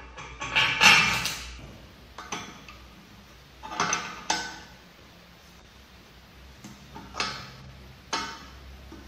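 Separate sharp metal clinks and taps of a steel wrench and bolt while a pillow block bearing is bolted to a steel post, the loudest about a second in.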